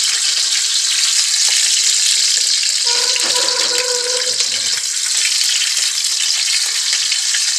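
Small red sausages sizzling in hot oil in a wok, a steady frying hiss while they are stirred.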